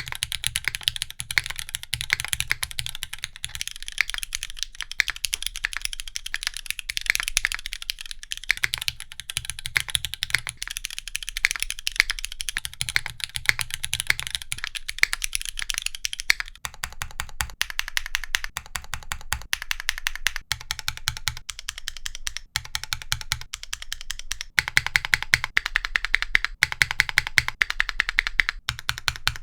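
Steady typing on mechanical keyboards with Cherry MX Black linear switches on aluminium plates: first the gasket-mounted Zephyr 1 with its stainless steel bottom, then, about halfway through, the Neo 65CU. The keystroke sound changes character at the changeover.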